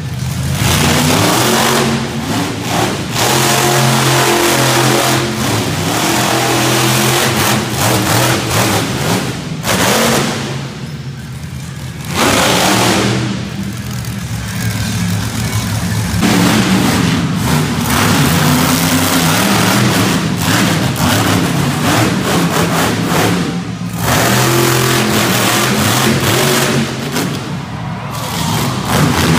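Monster truck engine revving hard at high throttle, loud, with the revs dropping away briefly several times as the throttle is lifted and reapplied.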